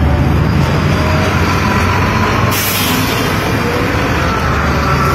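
Low, steady rumble of an idling truck engine, with a sharp hiss of released air from its air brakes lasting about half a second, about two and a half seconds in.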